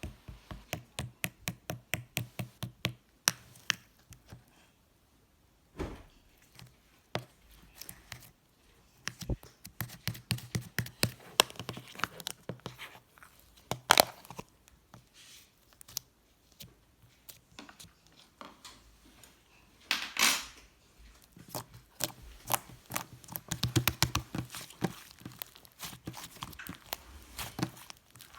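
Firm white slime being pressed, squeezed and stretched by hand, giving runs of small wet clicks and pops with now and then a louder snap or tearing sound.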